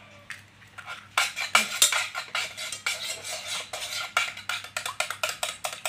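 A metal spoon clinking rapidly against the sides of a saucepan as raw eggs are beaten in it, starting about a second in.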